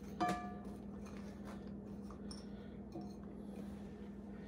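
A light glass-on-glass clink just after the start, ringing briefly, as a small glass bowl of sliced zucchini taps a large glass salad bowl while being emptied; a fainter tap follows about three seconds in, over a low steady hum.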